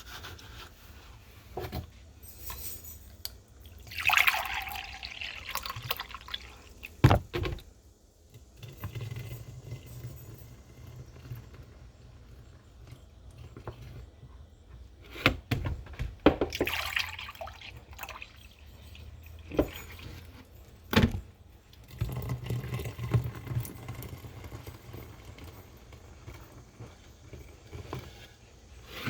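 Distilled white vinegar poured from a gallon jug into bottles, gurgling and splashing in stretches, with a few sharp knocks in between.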